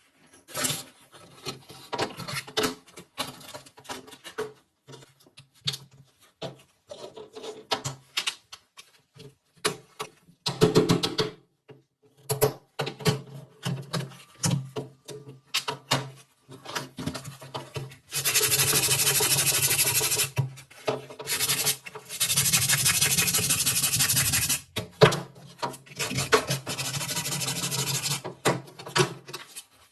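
Abrasive work on rifle parts: short rubbing and scraping strokes, then from about halfway on, long steady stretches of sanding noise in three spells.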